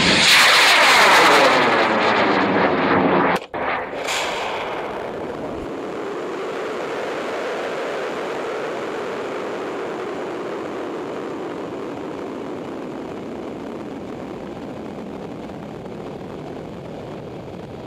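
M-class solid-fuel high-power rocket motor igniting at liftoff and burning with a loud roar for about three and a half seconds, a falling, phasing sweep running through it as the rocket climbs away. It breaks off abruptly, followed by a steady rushing noise that slowly fades.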